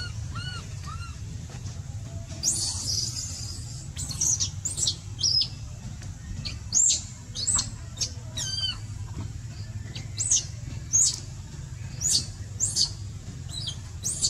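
Short, sharp high-pitched animal chirps, about a dozen, coming irregularly, with a few softer arched calls in the first second, over a steady low hum.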